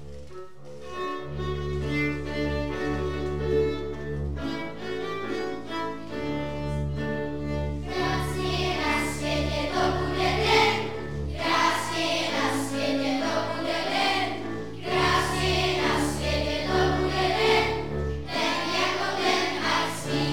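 Children's class choir singing a song, accompanied by acoustic guitar, double bass and violin. The instruments play an introduction alone for the first several seconds, and the children's voices come in about eight seconds in.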